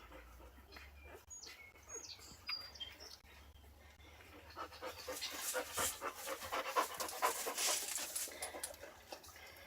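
Mother dog panting close up, quick rapid breaths that start about halfway through and grow louder. Before the panting, a few faint high squeaks and soft clicks.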